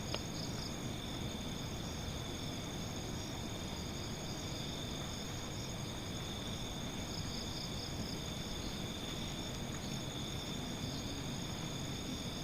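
A steady chorus of night insects trilling in several high, unbroken pitches, over a constant low hiss of background noise. There is one faint click right at the start.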